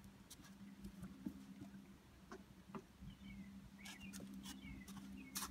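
Quiet pond-side ambience: a faint steady low hum under scattered small clicks, with a few short, falling bird chirps about three to four and a half seconds in and a sharper click near the end.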